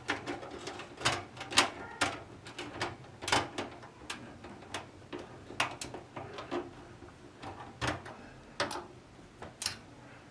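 Irregular clicks, taps and knocks as computer hardware is handled and fitted, with about a dozen sharp clacks over a faint low hum.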